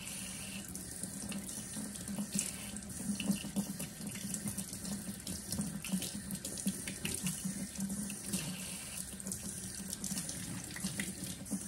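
Kitchen faucet running a thin stream of water into a stainless steel sink, left running until it runs warm. Irregular splashing breaks into the stream as hands move under it.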